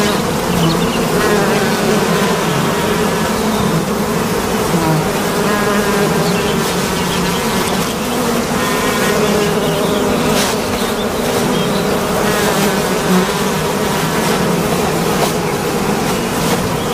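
Bumblebees buzzing loudly and steadily around their disturbed nest, several overlapping drones wavering slightly in pitch: the bees are defending the nest.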